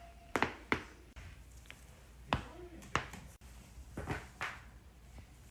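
Joints cracking: several sharp pops spaced irregularly, some in quick pairs near the start and near the end.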